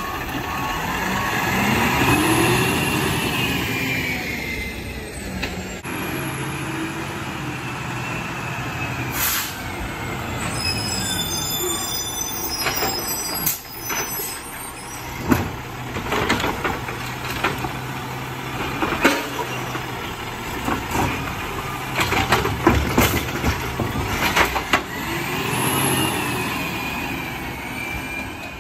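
Autocar ACX garbage truck with a Dadee Scorpion automated side-loader running as its arm picks up and empties a recycling cart: the engine and hydraulics rise and fall in pitch, and a run of sharp clanks and clatters sounds through the middle as the cart is shaken out into the hopper. Air brakes hiss, and the engine climbs again near the end as the truck pulls away.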